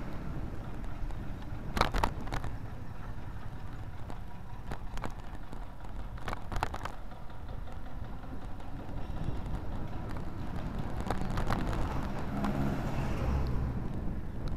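Wind and road rumble picked up by a camera riding on a moving bike in city traffic, with short rattles about four times as it jolts over the road.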